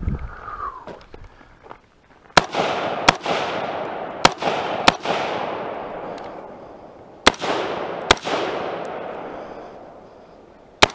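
AR-style rifle firing seven shots, mostly in quick pairs about three-quarters of a second apart, starting about two seconds in. Each sharp crack is followed by a long echo that fades away.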